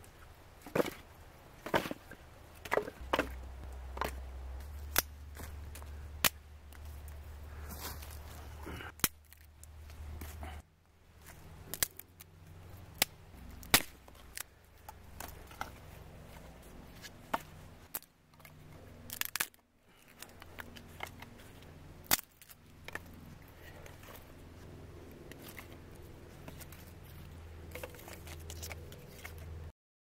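Axe chopping wood: sharp, irregular strikes, about one a second at first and sparser later, with a few short breaks.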